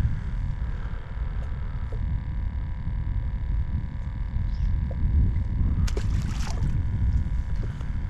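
Water lapping against the hull of a small skiff, with a steady low rumble. A short, sharp noise comes about six seconds in.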